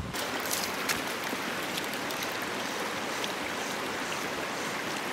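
Shallow rocky stream running over riffles: a steady rushing hiss of water, with a few faint ticks in the first second.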